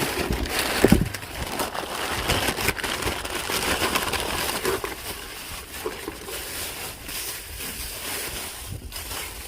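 Rustling and crinkling of packaging being handled as an item is unwrapped, with a thump about a second in.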